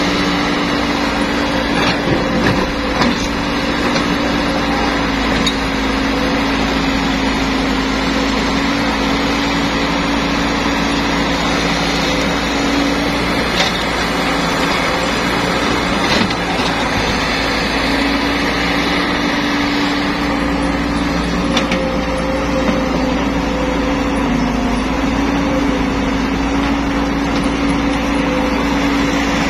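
Caterpillar E120B hydraulic excavator's diesel engine running steadily as it digs rock and loads a dump truck, a constant drone that wavers a few times, with a few short knocks of rock and dirt.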